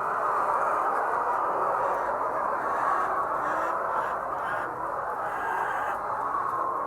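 Large flock of laying hens calling and clucking all at once, a steady overlapping chorus with no pauses.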